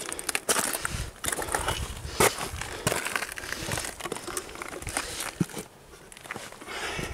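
Boots scrambling over gritty granite and loose gravel: irregular crunching and scraping steps on rock.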